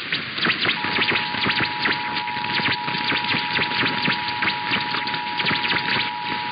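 Emergency Alert System attention signal, a steady two-tone alarm of 853 and 960 Hz, coming on about a second in over crackling static.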